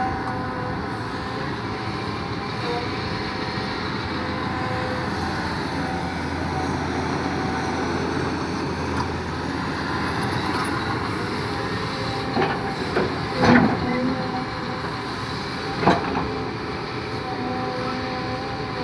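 Cat excavator's diesel engine running steadily, with several sharp knocks about two-thirds of the way in.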